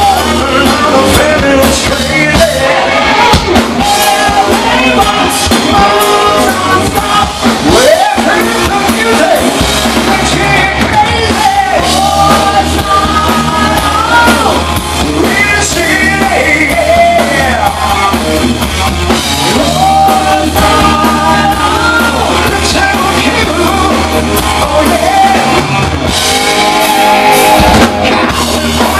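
Live rock band playing loud: electric guitars, bass and drums, with a male lead vocal singing over them.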